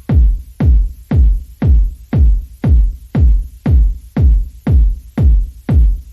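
Electronic background music with a heavy, steady kick-drum beat, about two beats a second.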